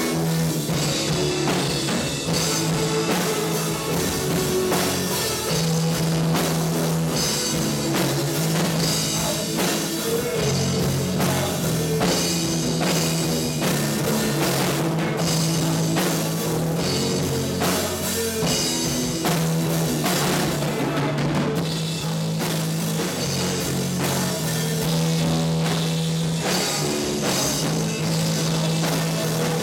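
Rock band playing live: electric guitar, drum kit, keyboard and electric bass together, with a steady drum beat.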